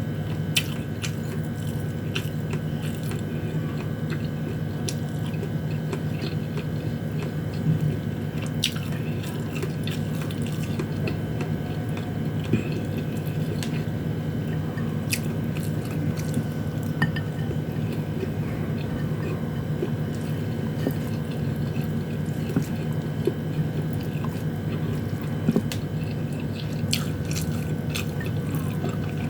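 Close-miked chewing of canned sardines and rice, with scattered sharp clicks at irregular intervals. Under it runs a steady low background hum.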